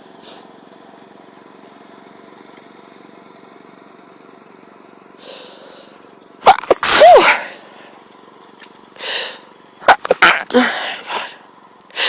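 A person sneezing twice, loud and voiced, about halfway in and again some three seconds later: part of a sneezing fit she puts down to a lingering cold or a mild tree-pollen allergy.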